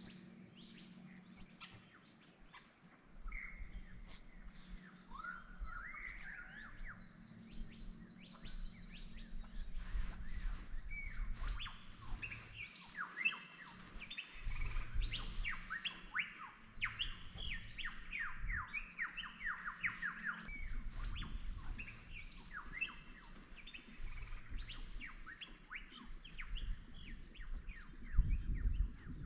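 Several birds chirping and singing in riverside bushland, with quick runs of sweeping notes through the middle. A low rumble of wind on the microphone sits underneath, and a louder low thump comes near the end.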